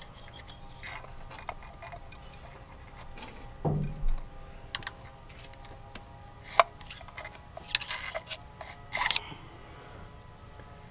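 Scattered light metallic clicks and scrapes of a thin metal tool probing down into the oil filler opening of a Nissan engine's valve cover, with a dull thump about four seconds in.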